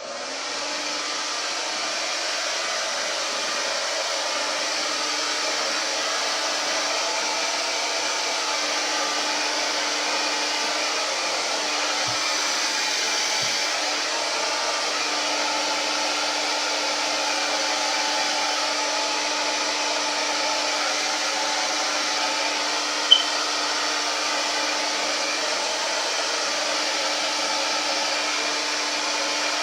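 Turbo Styler blow dryer switched on and running steadily, a constant rush of air over a low motor hum. A single sharp click sounds about 23 seconds in.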